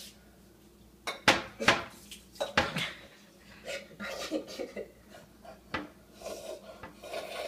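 A clear glass bowl clinking and knocking against a stone kitchen countertop. There are a few sharp knocks about a second in, two more near three seconds and one near six seconds, with softer handling noise between them.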